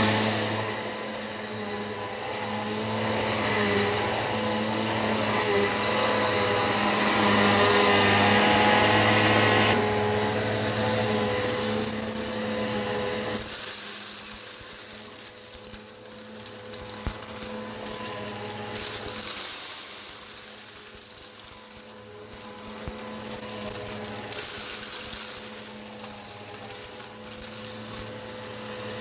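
Eureka PowerSpeed upright vacuum cleaner running with a steady motor hum and whine. About halfway through its tone shifts and scattered ticks and rattles come in as rock salt and lentils are sucked up.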